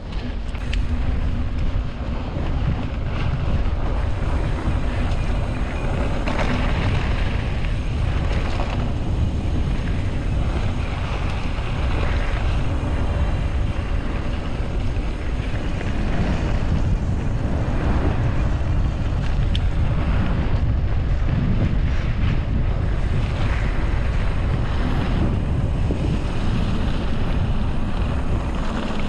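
Wind buffeting the microphone of a camera riding along on a mountain bike: a steady, loud low rumble.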